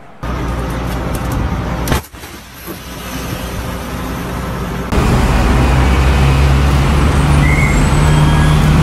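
Road and engine noise inside a moving car on a wet road: a steady rushing noise over a constant low hum, loud and unchanging through the second half. Before it is a different noisy stretch with a sharp knock about two seconds in.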